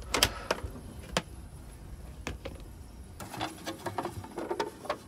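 Scattered light clicks and knocks of things being handled, with a denser run of small clatters in the second half.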